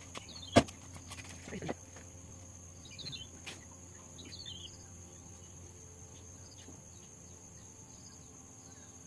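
Outdoor ambience: a steady high insect drone with a few short bird chirps. A sharp knock comes about half a second in, followed by a couple of softer knocks.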